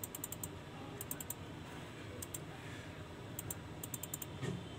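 Several quick runs of two to five light, high clicks from the computer being used to move through a service-manual schematic, with a soft thump near the end.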